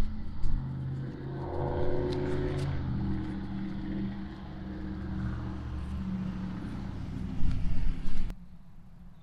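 A motor vehicle's engine running, its pitch rising about a second and a half in. A few loud knocks come near the start and again near the end, and then the sound cuts off suddenly.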